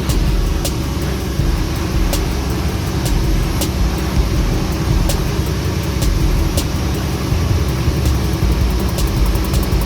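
Heavy vehicle engine running steadily with a low rumble, with sharp clicks about every second and a half that come more thickly near the end.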